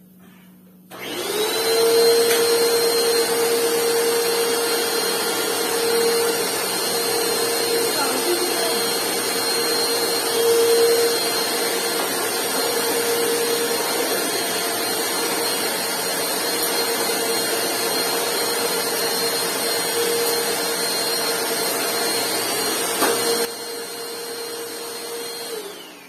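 WAP Life Speed 2-in-1 upright vacuum cleaner switching on about a second in and running steadily, with a high whine over the motor's rush of air. A couple of seconds before the end it gets quieter, then it is switched off and the motor winds down with a falling whine.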